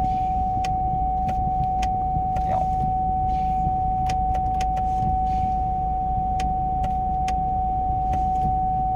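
Ford Ranger 2.2-litre diesel engine idling steadily, with a steady high-pitched whine over it and occasional light clicks.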